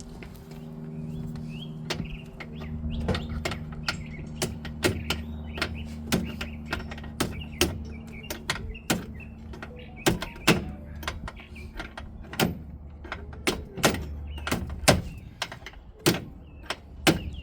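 Repeated sharp metal knocks, irregular and coming faster near the end, as a tool is struck against the Can-Am Maverick X3's rear sway bar mount to work it loose under tension. A steady low hum runs underneath and fades out near the end.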